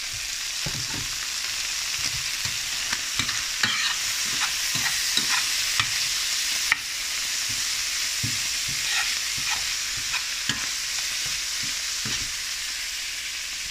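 Pieces of veal heart with chopped herbs sizzling in a hot frying pan while being stirred. The utensil knocks and scrapes against the pan many times over a steady frying hiss.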